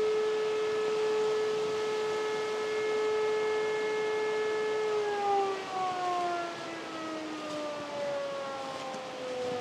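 Outdoor civil-defence siren holding a steady wail, then winding down with its pitch falling slowly from about halfway through.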